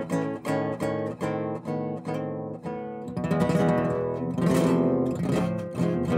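Acoustic guitar playing: single picked notes at about three a second, changing to denser strumming about halfway through.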